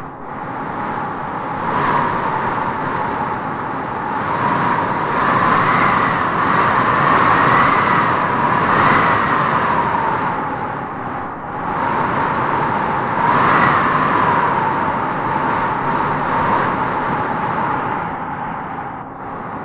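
Howling wind: a steady rush with a whistling tone that rises and falls as it swells in gusts, loudest through the middle and again about two-thirds in.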